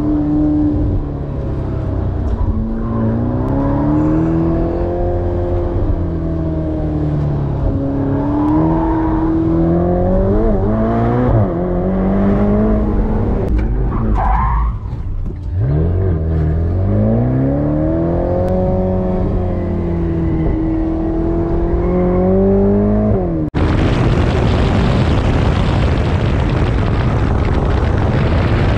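Ferrari Portofino's twin-turbo V8 heard from inside the open cabin, revs climbing and dropping repeatedly as the car accelerates and shifts around the track, with a brief tyre squeal about halfway. Near the end the engine gives way to loud, steady wind rush over the microphone.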